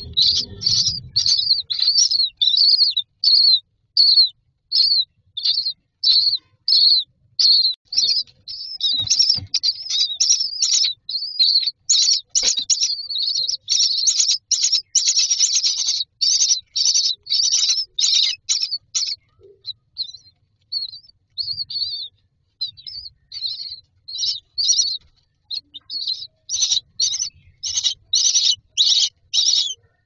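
Common myna nestlings begging for food: short, high-pitched calls repeated in quick succession. The calls thin out for a few seconds past the middle, then pick up again.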